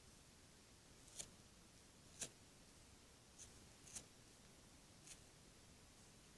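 Bobcat feeding on a deer carcass: five faint, short crunches or snips of teeth on hide and flesh at uneven intervals, the sharpest about two seconds in, over a steady hiss.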